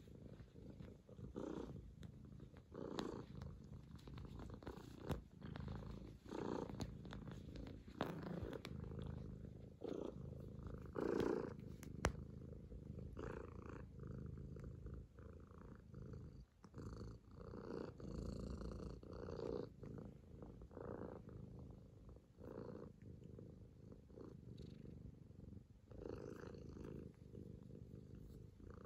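Kitten purring steadily on a lap, the purr swelling and easing in a slow rhythm, about once every second and a half, with its breathing. A brief sharp click about twelve seconds in.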